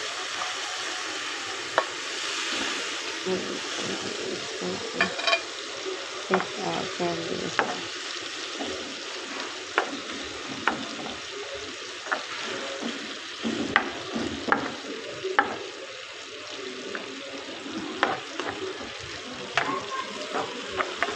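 Canned tuna and tomato-onion masala frying in oil in a pan, sizzling steadily, while a plastic spatula stirs and knocks against the pan in scattered sharp clicks.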